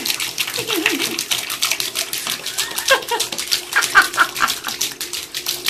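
A puppy's paws splashing rapidly in shallow bathtub water, a quick run of wet slaps several times a second.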